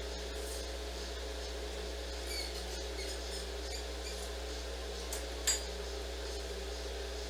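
Steady room hum with a few faint, high squeaks and small clicks about two to four seconds in, and one sharp click about five and a half seconds in.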